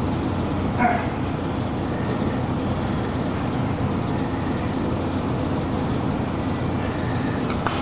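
A steady low rumbling noise at an even level, with one brief faint clink about a second in.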